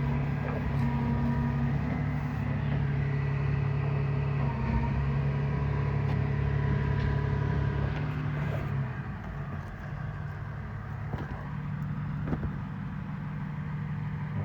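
Dual-action sander with a 2000-grit disc running steadily against the panel, wet-sanding the paint to take out its texture before buffing. Its hum drops a little in level about two-thirds of the way through.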